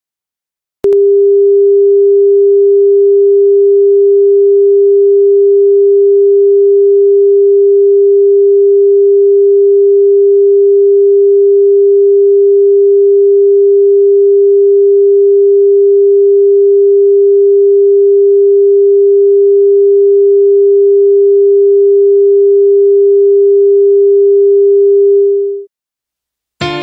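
Broadcast test tone at a TV station's sign-on: a single steady pure tone that cuts in about a second in and fades out near the end, followed by a moment of silence and the start of piano music.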